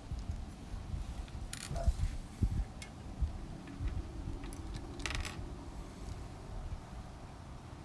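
Small metal parts clinking and rattling as gauge hardware is handled, in two brief clusters about one and a half and five seconds in, with a few single ticks between. Under them is a low, uneven rumble of wind on the microphone.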